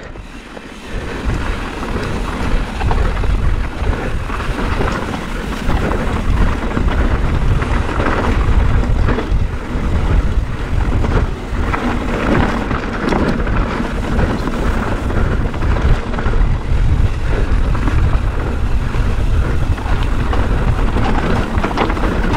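Wind rumbling on the microphone of a riding mountain biker, with mountain-bike tyres crunching and rattling over loose rock and gravel on a fast trail descent.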